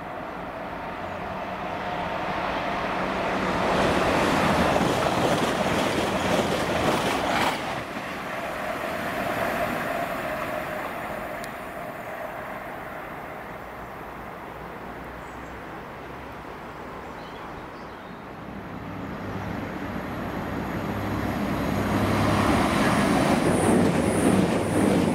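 Passenger trains passing through a main-line station at speed: rail and wheel noise builds to a peak about four to seven seconds in, with a sharp crack near the end of that peak, then dies away. A second train's noise builds again over the last several seconds.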